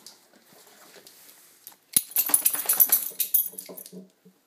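A kitten with its head stuck in a cardboard tissue box scuffling on a tile floor beside a dog: a sharp click about two seconds in, then about a second and a half of loud rattling and scraping before it breaks up into scattered soft knocks.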